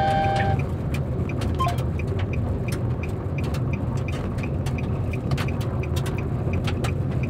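Steady engine and tyre noise inside a moving car's cabin on a sand-covered road, with many scattered sharp ticks throughout.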